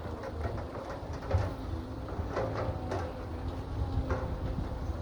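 Excavator's diesel engine running with a steady low rumble, with scattered knocks and clanks.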